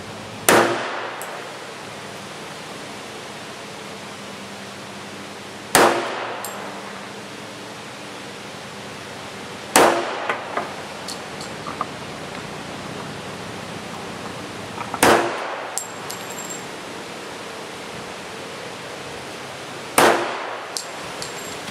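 Para Ordnance 1911 .45 pistol fired five times, slow aimed shots about four to five seconds apart. Each shot is a sharp crack with a short echo, followed by faint clinks.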